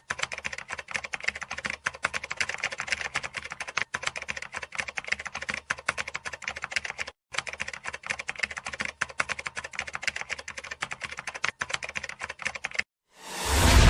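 A fast, continuous run of sharp clicks, like rapid typing, in several stretches broken by short gaps. Near the end a loud whoosh swells in.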